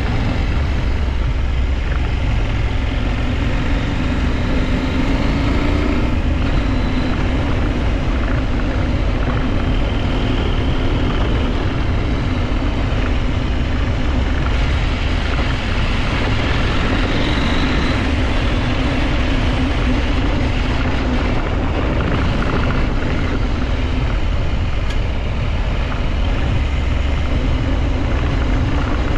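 A 2023 KTM 890 Adventure motorcycle ridden, its parallel-twin engine running with a note that rises and falls with the throttle over steady wind and road noise.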